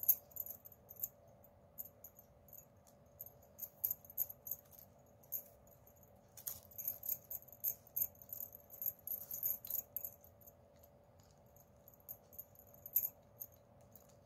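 Plastic craft wire strands clicking, ticking and rubbing against one another as they are handled and pulled into cross knots: light irregular clicks, some clusters busier than others, with a slightly louder click about thirteen seconds in.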